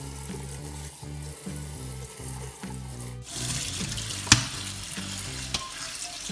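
Kitchen tap running onto napa cabbage in a stainless-steel mesh strainer in the sink, the splashing growing louder about three seconds in as more cabbage is tipped in from a metal colander, with a sharp knock a second later. Background music with a steady beat plays throughout.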